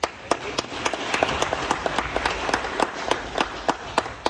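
Audience applauding, with one clapper close by standing out at about three to four claps a second; it starts suddenly and dies down near the end.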